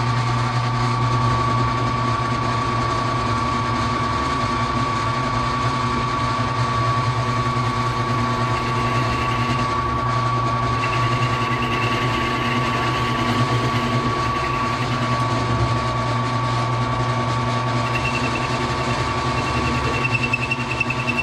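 Benchtop drill press running steadily while an adjustable circle cutter bores a 1-inch hole through an aluminium bar spacer. A high squeal of the cutter in the metal comes in about halfway through and again, louder, near the end.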